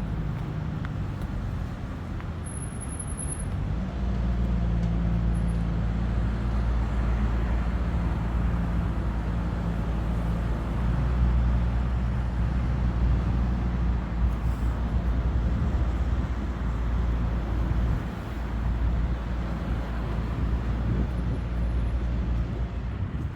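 Street traffic with a motor vehicle's engine running close by: a steady low rumble that grows louder about four seconds in.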